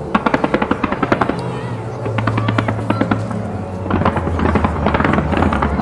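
Display fireworks going off in a rapid string of sharp bangs, about ten a second, for the first second or so. A second run of bangs and crackling starts about four seconds in.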